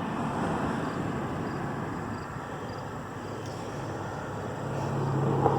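Steady rumble of a vehicle, with a low engine hum that grows louder near the end.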